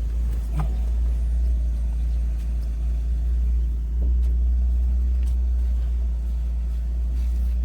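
Steady low rumble inside a car with a few faint clicks; the rumble cuts off suddenly at the very end.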